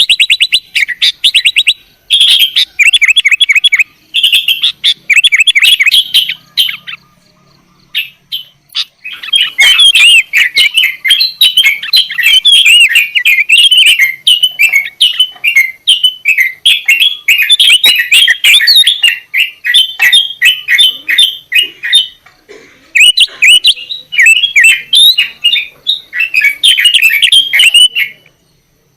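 Sooty-headed bulbul (kutilang) singing loudly in fast, bubbly chattering phrases, with a few short pauses between bursts.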